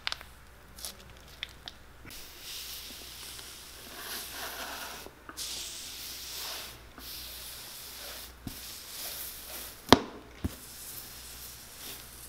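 Granulated cork ticking as it pours from a plastic bag into a welted boot's forepart. Then a heated iron hisses steadily as it presses and smooths the hot cork filler, breaking off briefly each time it is lifted. A sharp knock comes about ten seconds in and is the loudest sound.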